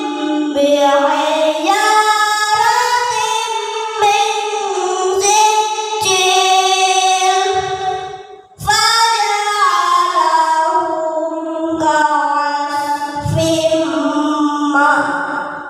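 A child singing solo without accompaniment, in long held, sliding notes, with a short pause for breath a little past halfway.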